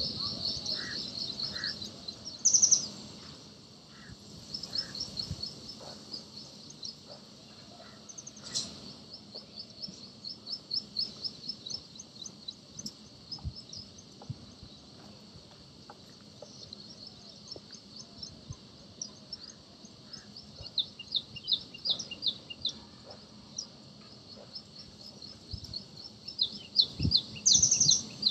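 Birds calling in quick runs of high chirps, repeated throughout, with louder bursts about two and a half seconds in and again near the end.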